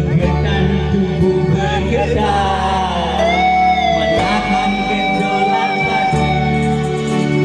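Music: a singing voice with a plucked guitar accompaniment, including a long sliding held note a couple of seconds in.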